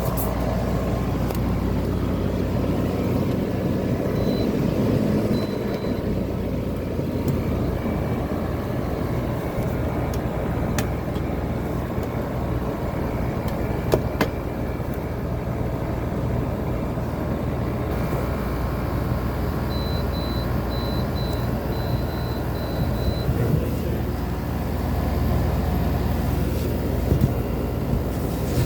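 Steady low running rumble of a vehicle or machine, with two runs of short high-pitched beeps, about four seconds in and again past the two-thirds mark, and a few light clicks.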